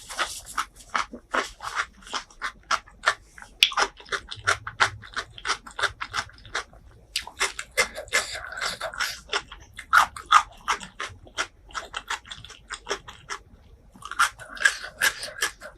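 Close-miked chewing and wet mouth sounds of someone eating: quick irregular clicks and smacks, several a second, with a couple of short pauses.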